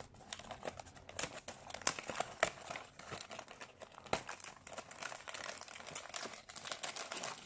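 A cracker box being opened by hand and the packs inside handled: steady crinkling of packaging with irregular clicks and crackles.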